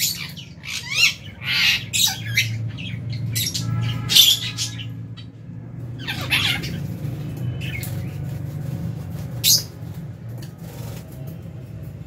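A flock of lovebirds calling: a quick run of shrill squawks and chirps in the first half, then only an occasional call, over a steady low hum.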